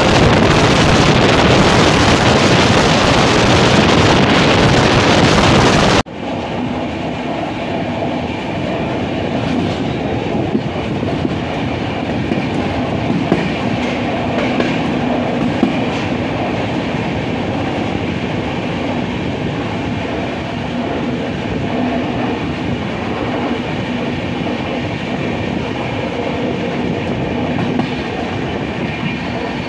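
Wind blasting the microphone at the open door of a moving passenger train, cutting off suddenly about six seconds in. Then the coach's steady running noise: wheels rumbling on the rails with a faint hum and occasional clicks over rail joints.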